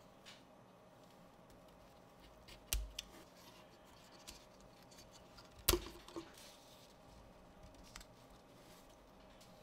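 Thin laser-cut wooden parts of a 3D wood model kit being pressed and snapped together by hand: a pair of sharp wooden clicks about three seconds in, a louder pair about six seconds in, and a few faint ticks between.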